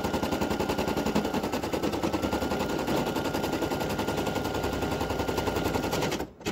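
Brother PE800 embroidery machine stitching at speed, a fast, even rattle of needle strokes with a faint steady whine, sewing down the applique fabric (tack-down stitch). It stops abruptly near the end.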